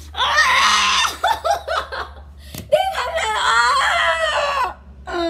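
A teenage boy screaming in two long bursts, with short broken laughing sounds between them.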